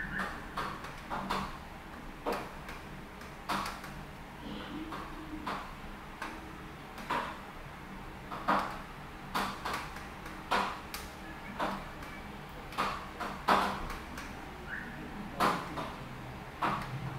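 Rain, with large drops dripping irregularly onto a hard surface close by: sharp taps about every second, some louder than others, over a steady background hiss and a low hum.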